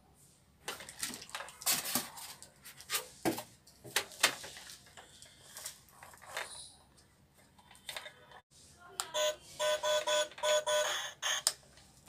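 Plastic RC stunt car being handled and turned over: scattered clicks and knocks of its hard plastic body and wheels. Near the end comes a fast run of electronic beeps, about four a second, lasting a couple of seconds.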